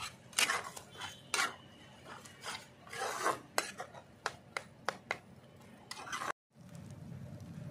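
Metal spatula scraping and stirring fish, tomato and onion in a kadai, in irregular strokes, as the lote fish is slowly fried and broken up into a crumbly mix. The sound cuts out for a moment about six seconds in, then only a faint steady background remains.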